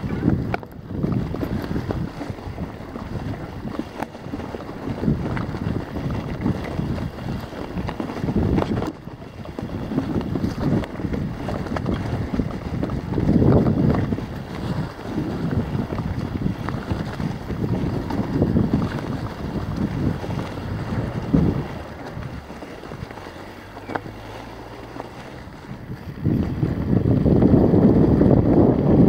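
A mountain bike rolling fast over a rough dirt trail: tyres rumbling and the frame clattering over bumps, with wind buffeting the microphone. It gets louder again after about 26 seconds.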